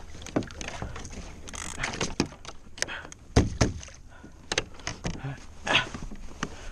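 Irregular knocks, clicks and rattles of a paddle and fishing gear against the plastic hull of an Ocean Kayak Trident 13 as the paddle is shifted. One heavy thump about three and a half seconds in is the loudest.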